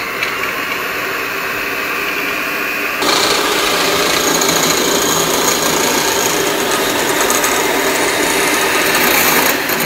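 Electric hand mixer running steadily, its beaters whisking egg in a glass bowl; it gets louder about three seconds in.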